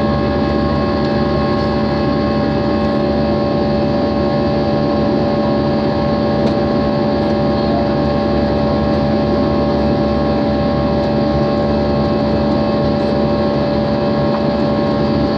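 Jet airliner cabin noise in flight: the engines and rushing airflow make a steady, unchanging drone with several constant hum tones riding over it.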